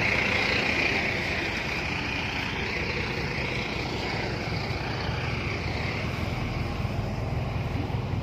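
A vehicle engine running steadily, a low hum, with a hiss that is strongest at the start and fades over the first few seconds.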